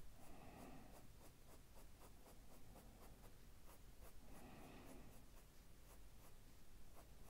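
Faint scratching of a soft-core Prismacolor coloured pencil on paper, laid down in a quick run of short strokes.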